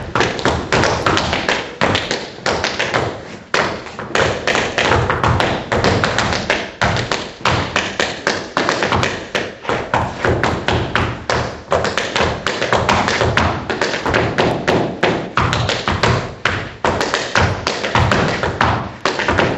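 Unaccompanied tap dancing: tap shoes striking the floor in fast, uneven rhythms of sharp taps mixed with heavier stamps, several strikes a second.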